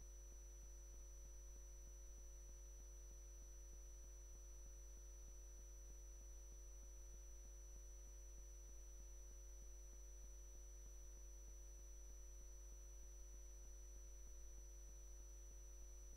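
Near silence: a faint steady low hum with a thin, steady high tone above it, unchanging throughout.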